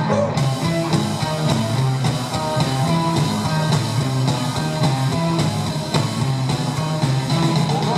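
Rock band playing live: electric guitars, bass guitar and drum kit.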